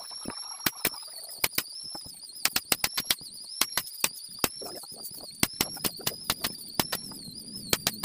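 Pneumatic nail gun firing into the edge of a cabinet board: dozens of sharp shots in quick, irregular runs.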